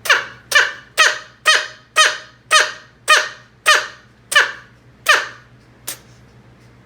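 A pet sneezing over and over in a rapid fit, about ten sharp sneezes roughly two a second, followed by one short click near the end.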